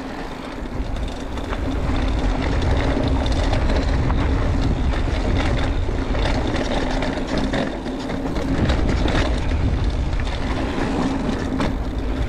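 Mountain bike riding down a rough dirt trail: wind buffets the microphone and the tyres rumble over the ground, with scattered sharp knocks and rattles from the bike over rocks and roots.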